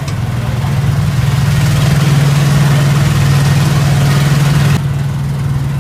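Small ride-on train's engine running steadily with a low hum, made louder and more rattling by the walls of a tunnel the car is passing through. The rattle and hiss drop away suddenly near the end while the engine hum carries on.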